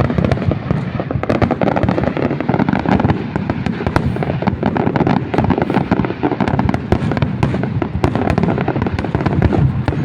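Fireworks display: a dense, continuous barrage of crackling pops and bangs, many to the second, without a break.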